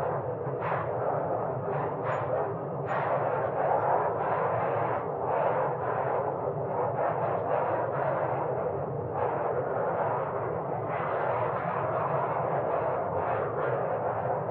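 Wind blowing in a steady rush that swells and eases in gusts every second or two, without any whistling tone.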